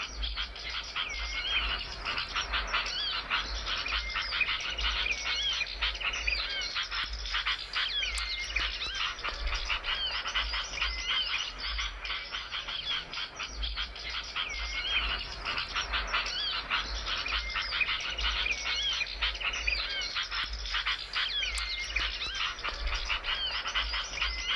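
Small songbirds calling in a dense, rapid chatter and twitter, with short curling whistled notes repeating every few seconds, as in a bird-luring call recording. A low pulsing hum runs underneath.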